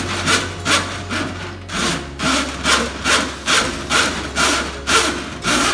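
Drum-type drain snake being pulled back out of a kitchen sink drain, its steel cable rasping against the pipe and drum in repeated scraping strokes, about two to three a second, with a brief pause a little under two seconds in.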